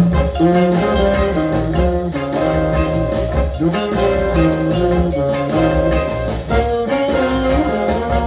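Brass-led jazz playing from a mono vinyl LP on a Rek-O-Kut K33H turntable with a GE VR II cartridge, heard through the room's speakers.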